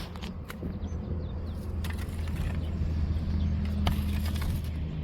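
An engine running steadily with a low, even hum, with a few sharp clicks scattered over it.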